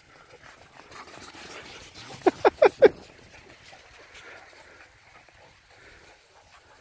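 Border collie giving four quick, high play barks in a row, each dropping in pitch, about two seconds in, while the dogs rough-house.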